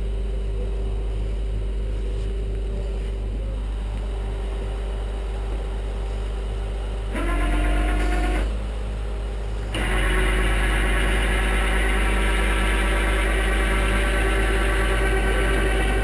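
Tow truck engine idling steadily, then running faster and louder about seven seconds in, dropping back briefly, and staying at the higher speed from about ten seconds on.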